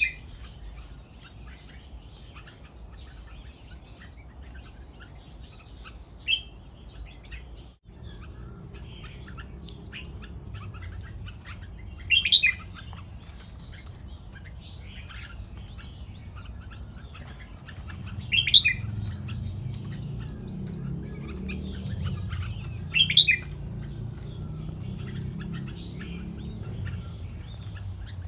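Caged red-whiskered bulbuls of a white fancy morph chirping and calling, with a few louder short song phrases about every five or six seconds. A low steady rumble runs underneath.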